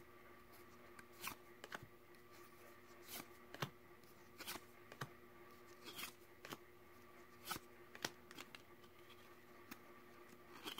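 Yu-Gi-Oh! trading cards being flipped one by one through a hand-held stack, each card sliding off the front with a faint papery flick, roughly once a second.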